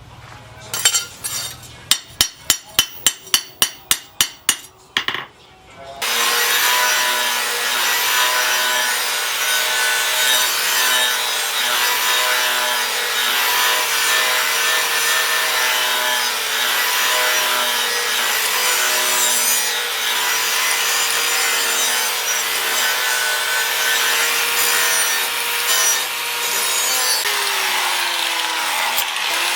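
A quick run of sharp hammer strikes, about three a second. Then a power grinder runs and grinds steadily, its motor whine steady until near the end, when the pitch falls as it winds down.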